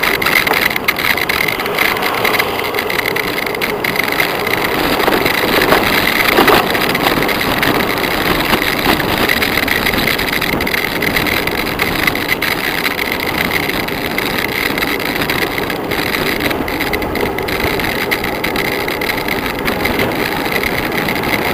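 Steady engine and road noise from a slow-moving motor vehicle, heard from on board.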